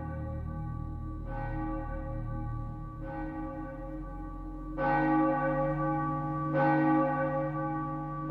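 A large bell tolling slowly, one stroke about every two seconds, each stroke ringing on into the next, with the strokes growing louder about halfway through. A low steady hum runs underneath.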